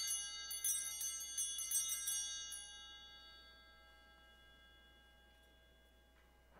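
Altar bells shaken in a quick run of bright, high rings for about two and a half seconds, then left ringing and fading away over the next few seconds. The ringing marks the elevation of the chalice at the consecration.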